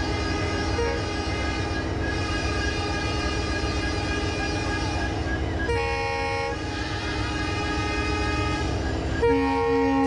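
Train locomotive running at a standstill with a steady rumble, sounding two short horn blasts, one about six seconds in and one near the end.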